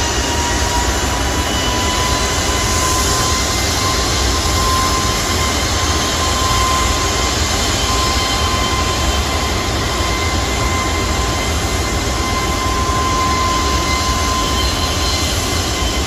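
Airbus A330-300 airliner's turbofan engines running at taxi power as it rolls past: a steady loud rush with a high whine that rises slightly in pitch over the first few seconds.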